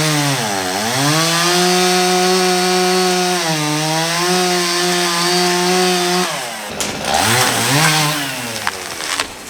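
Two-stroke chainsaw running at full throttle while cutting a tree, its pitch dipping briefly under load just after the start and then holding steady. About six and a half seconds in the engine drops off, dips and rises once more, then falls away near the end.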